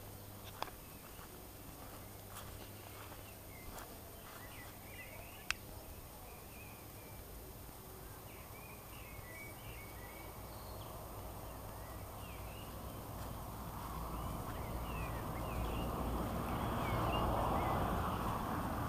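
Small birds chirping in short scattered calls, with a few light clicks in the first few seconds. Over the second half, a broad rush of noise swells, loudest near the end, then begins to fade.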